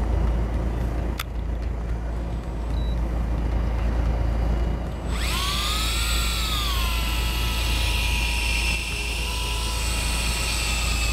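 Electric fishing reel's motor whining as it winds in line under load from a bent rod. It starts about five seconds in, rises in pitch, then sags and settles to a steady whine. A boat engine hums low underneath throughout.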